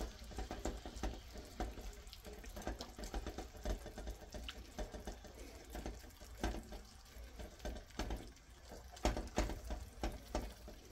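Shrimp sizzling faintly in butter, onion and white wine in a ceramic-coated frying pan, with irregular small pops. A spatula scrapes and taps against the pan, a few taps louder than the rest, as the shrimp are pushed into one layer.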